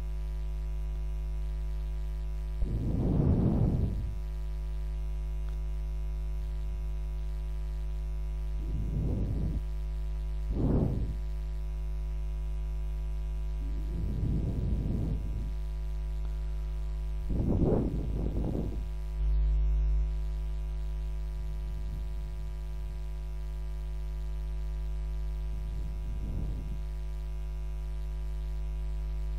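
Steady electrical mains hum with a buzzy row of overtones, picked up in the recording chain, broken every few seconds by a brief indistinct sound about a second long.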